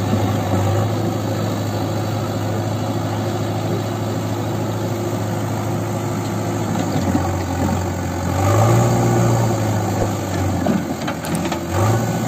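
JCB 3DX backhoe loader's diesel engine running steadily while the backhoe digs, the engine speed rising for about a second and a half past the middle and briefly again near the end as the hydraulics are worked under load.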